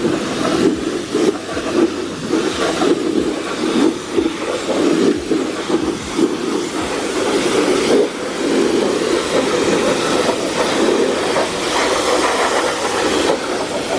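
A jet of water spraying hard against a car's rear hatch panel, a steady rushing hiss that shifts as the spray moves over the panel.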